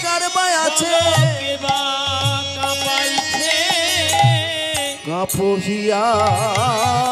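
Bengali devotional kirtan music: a held melody line with vibrato over regular low hand-drum strokes. It dips briefly in loudness about five seconds in.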